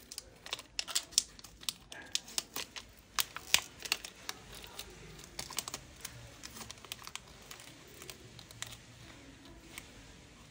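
A rapid, irregular run of light clicks and taps from small parts and tools being handled at a phone repair bench, thick at first and thinning out after about four seconds.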